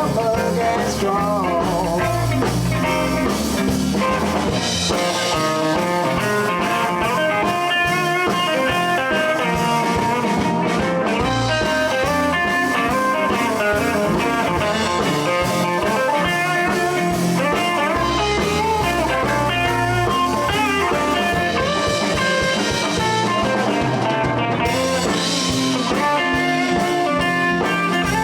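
Live blues band playing an instrumental passage: a bending lead line over guitar, bass and drums.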